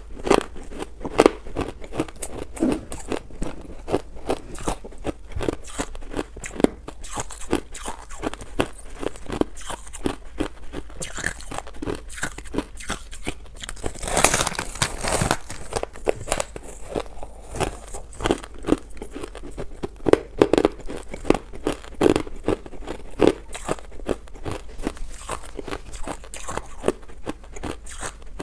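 Close-miked biting and chewing of a block of compacted crushed ice: dense, irregular crackly crunches throughout, with a louder, longer crunch about halfway through.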